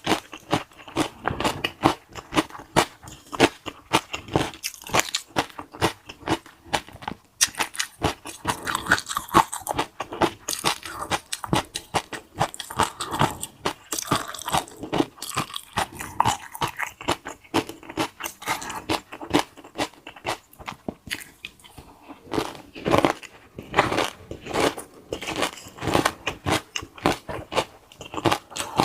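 Close-miked crunching and chewing of crunchy food, with dense sharp cracks from repeated bites and a brief lull about two-thirds of the way through.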